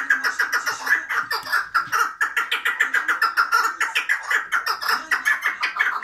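Chukar partridge calling in a fast, unbroken series of sharp notes, about eight a second.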